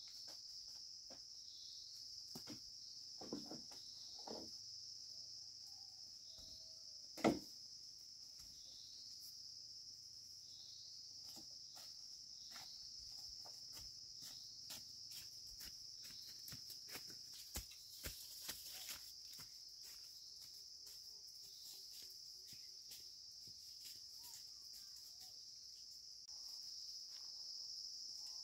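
Steady high-pitched chorus of insects, crickets or similar, with scattered light knocks and taps; one louder knock comes about seven seconds in.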